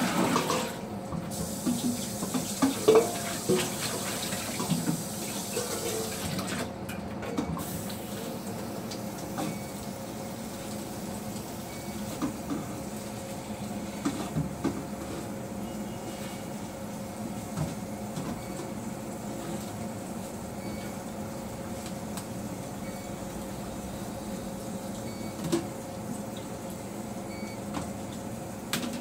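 Kitchen tap running into a steel sink while greens are rinsed in a plastic colander; the water is shut off about seven seconds in. Afterwards come scattered light knocks and clatter of the colander and dishes at the sink, over a steady low hum.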